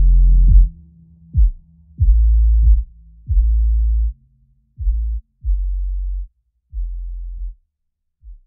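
Electronic background music of deep bass notes, each starting on a sharp kick-drum hit, getting quieter and fading out near the end.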